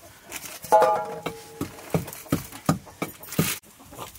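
A short call held at one steady pitch about a second in, followed by a run of sharp knocks, about three a second.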